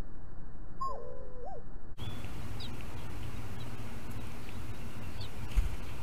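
Bird calls at a nest: a few sliding calls in the first two seconds, then, after an abrupt cut, faint short high chirps over a steady low hum, with a brief thump near the end.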